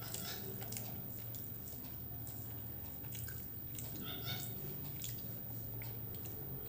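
Close chewing and small wet mouth clicks of a person eating a meal, over a steady low hum.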